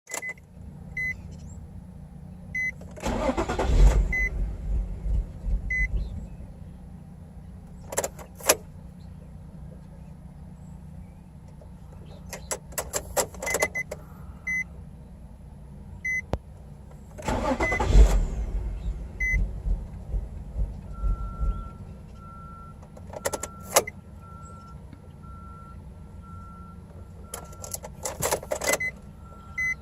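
A 2006 Nissan 350Z's V6 cranking on the starter twice, each attempt about three seconds, without catching: a very hard start. Clicks and a repeating electronic beep between the attempts.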